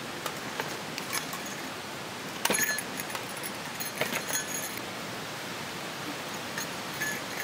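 A tactical backpack being taken off and set down on rocks, with sharp clicks and jangles from its buckles and strap hardware. The loudest cluster comes about two and a half seconds in, with more around four seconds and near the end, over a steady background hiss.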